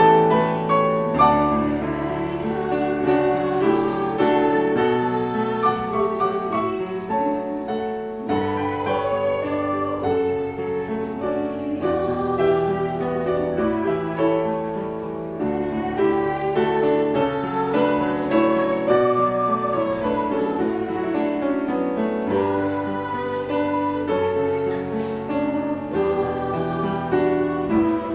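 Music: a slow piece with piano and held bass notes.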